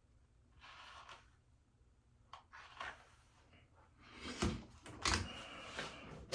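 Soft rustling and handling noises of hands working on a wig and small items, with two knocks a little past halfway.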